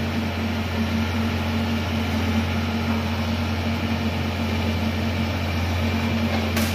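Mini excavator's engine running steadily while its bucket digs in a narrow trench, with one brief knock near the end.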